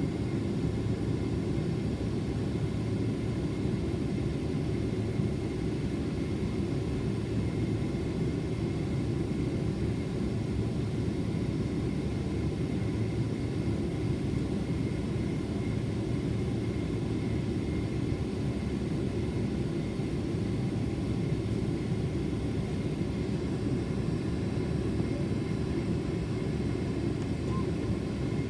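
Steady cabin noise inside a Boeing 767-400ER airliner: an even, low rumble of engines and airflow, with a faint steady whine above it.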